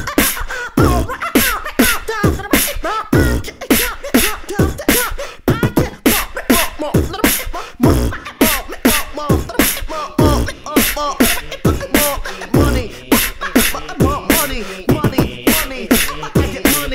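Human beatboxing: a fast, steady beat of mouth-made kick and snare sounds, with short gliding vocal tones woven between the strokes.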